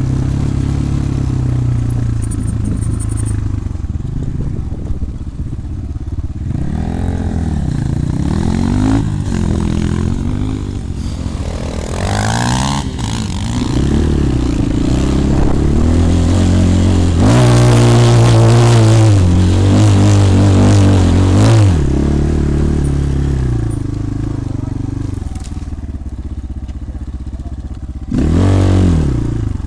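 250 cc dirt-bike engine running under riding load, its pitch rising and falling with the throttle again and again. It is loudest in a long high-revving stretch in the middle and ends with a short sharp rev that drops back.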